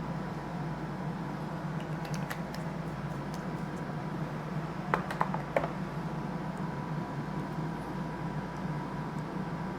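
Small clicks and ticks from handling small plastic model-locomotive parts, a cluster of sharper clicks about halfway through, over a steady low background hum.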